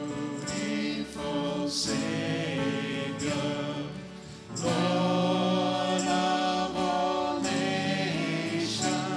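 Choir singing a hymn in held, sustained chords, with a brief break between phrases about halfway through.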